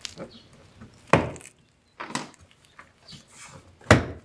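Plastic retaining clips of a Toyota Highlander rear door trim panel snapping loose as the panel is pried off with a trim removal tool: three sharp pops about a second apart, the last near the end the loudest, with light scraping and ticking between.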